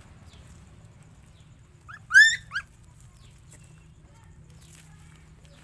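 A puppy yelping: three short, high cries in quick succession about two seconds in, the middle one loudest.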